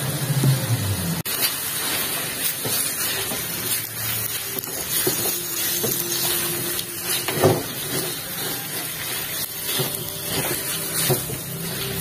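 Minced chicken sizzling in oil in a nonstick wok, with a steady hiss. A silicone spatula stirs and scrapes through the meat in short irregular strokes.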